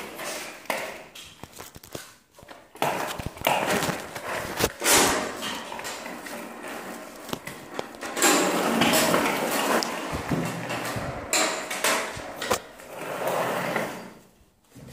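Irregular scraping and knocking as a small toy is pushed by hand across a tile floor, with a longer stretch of scraping about eight seconds in and a quieter pause near the end.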